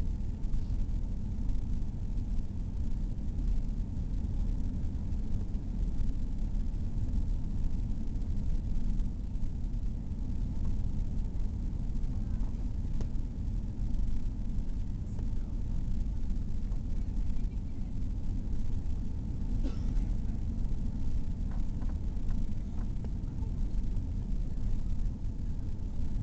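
Steady low rumble inside the passenger cabin of an Airbus A340-600 on approach with flaps extended: the noise of its four engines and the airflow over the fuselage.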